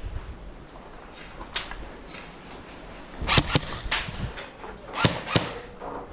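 Airsoft guns firing: a handful of sharp single cracks, two pairs in quick succession a little past halfway.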